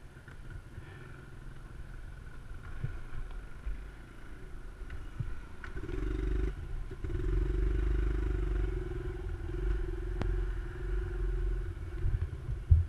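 A small motorcycle's engine running as the bike rides off, the note growing louder from about six seconds in and holding steady before easing off. A sharp knock near the end is the loudest moment.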